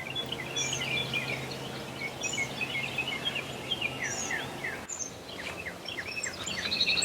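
Several birds singing and chirping together in a morning chorus, many short sweeping calls overlapping, with a fast trill near the end.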